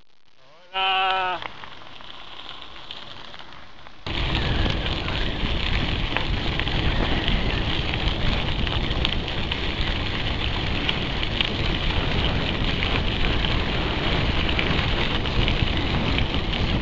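Steady rushing and crackling noise of bicycle tyres rolling over a gravel track with wind on the bike-mounted camera's microphone, starting abruptly about four seconds in. About a second in there is a brief high-pitched tone.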